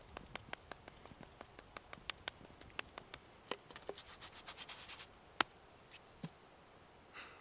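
Small fire of resin-soaked pine fatwood shavings burning with faint, irregular crackling and popping, several sharp pops a second, one louder pop about five and a half seconds in.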